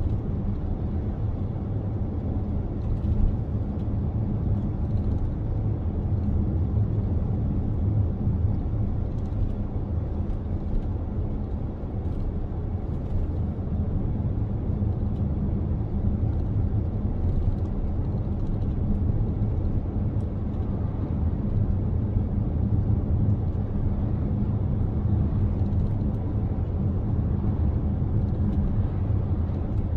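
Steady low rumble of a car driving along a road: tyre and engine noise that stays even throughout, with faint light ticks now and then.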